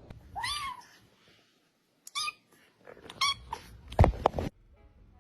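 A pet animal gives three short, high calls, each rising and falling in pitch, then two loud thumps about four seconds in.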